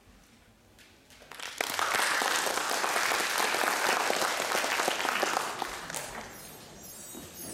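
Audience applauding, starting about a second in, holding steady for several seconds and then dying away near the end.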